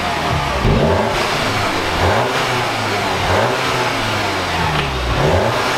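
Volkswagen Jetta GLI's 2.0-litre turbocharged four-cylinder, on its stock downpipe and stock muffler, revved several times in quick blips from idle, the exhaust note rising and falling with each one.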